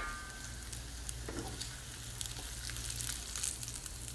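Breadcrumb-coated chicken breasts shallow-frying in olive oil in a nonstick pan over medium-high heat: a steady sizzle with scattered small crackles.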